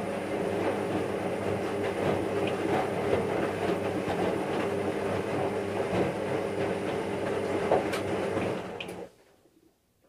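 Washing machine running: a steady motor hum under a dense, churning rattle, with a couple of sharp clicks near the end. It cuts off abruptly about nine seconds in.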